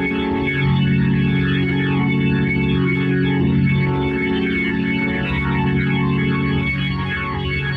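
Hammond B3 organ playing a rock improvisation: sustained low chords that change a few times, under quick runs of higher notes.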